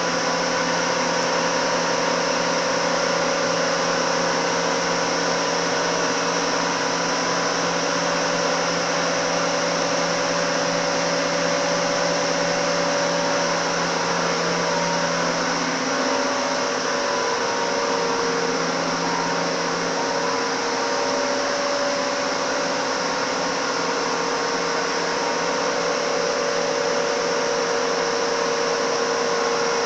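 Red chilli powder grinding machinery running: a steady high-speed whirr with several held hum tones, the lower of which waver and shift about halfway through.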